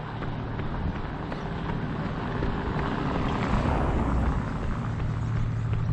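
Road traffic: a steady low rumble with a vehicle passing, growing louder to a peak just past the middle and then easing.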